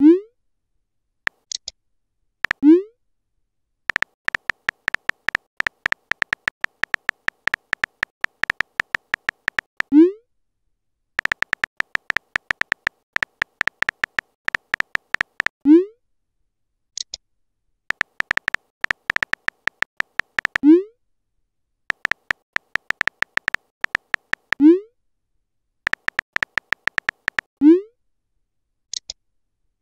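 Synthetic keyboard-tap clicks from a texting app, coming in quick runs as messages are typed. The runs are broken by short rising pops, seven in all, as each message is sent or arrives.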